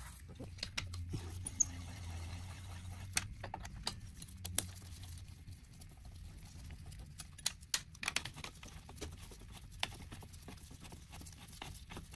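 Scattered, irregular light clicks and taps of a hand ratchet wrench and metal tools on the motor bolts of an electric dirt bike, over a faint low hum during the first few seconds.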